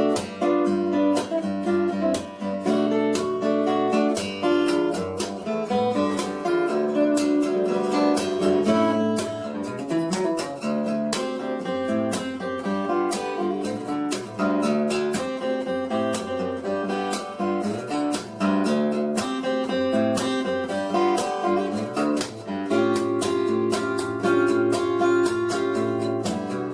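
Background music led by acoustic guitar, with many quick picked notes.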